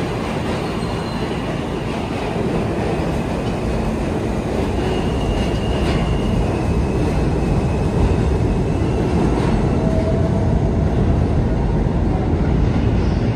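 New York City subway train running on the track: a steady, loud rumble of wheels on rail that grows louder a couple of seconds in and again past the middle, with faint, thin, high wheel squeals over it.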